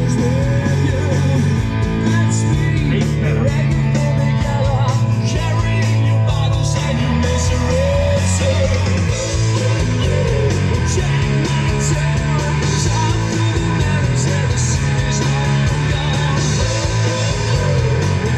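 Rock music with electric guitar, bass and singing, playing steadily.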